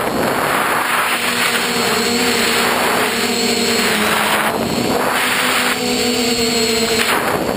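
Small motor running at a fairly steady pitch, picked up by an onboard first-person-view camera, with rushes of wind noise swelling twice.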